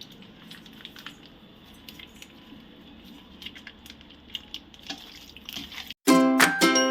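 Curd (yogurt) being added to raw chicken coated in masala: faint wet squishing with small clicks. About six seconds in it cuts off, and loud plucked-string background music starts.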